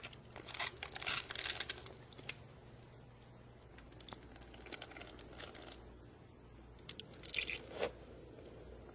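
Small plastic toy figures being handled, giving light clicks and crackles in three short bursts.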